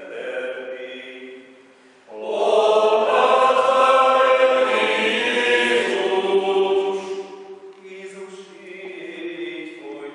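Men's choir chanting a sung Passion in a reverberant church. It swells much louder about two seconds in and falls back after about seven seconds.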